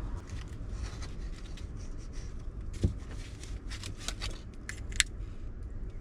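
Raw spiny rock lobster (crayfish) shell being broken apart to get the tail out: scattered clicks and cracks, a sharp one about three seconds in and a quick cluster near the end, over a low steady rumble.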